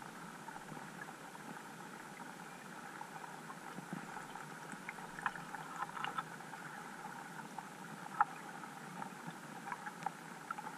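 Underwater ambience picked up by a GoPro in its waterproof housing: a steady, muffled hiss with scattered faint ticks and clicks, the sharpest about eight seconds in.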